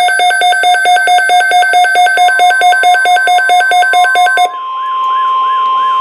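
Weather alert radio sounding its alarm: rapid, even electronic beeping, which changes about four and a half seconds in to a repeating up-and-down siren warble. Under it, from about two seconds in, runs the steady 1050 Hz NOAA Weather Radio warning alarm tone that signals a new alert.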